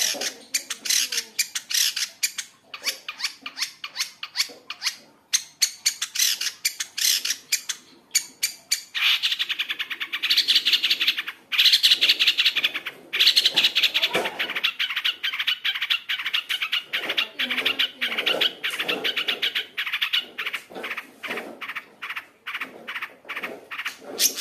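Long-tailed shrike (cendet) singing a fast, chattering song of rapid sharp notes, packed with varied mimicked phrases (full isian). About nine seconds in it breaks into a dense, fast trill for several seconds, then goes back to choppy chattering.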